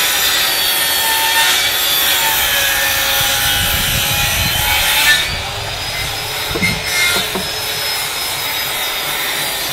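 A hand-held electric woodworking tool cutting or shaving timber planks: a steady motor whine over the rasp of wood, easing briefly about five seconds in, with a few light knocks a little later.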